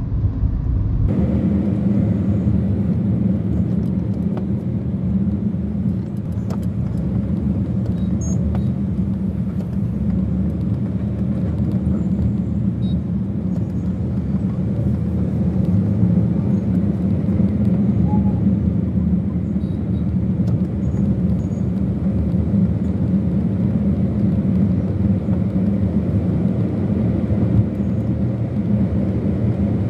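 Steady rumble of a vehicle's engine and tyres, heard from on board while it drives along in traffic.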